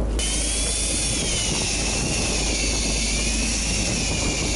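Small motor whining steadily, its pitch slowly wavering as it winds, switching on abruptly just after the start, over a low steady rumble of the boat and wind.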